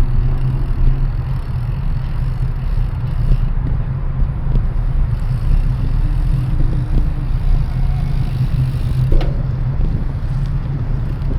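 Steady low rumble of wind and road noise on a camera microphone while riding, with a single click about nine seconds in.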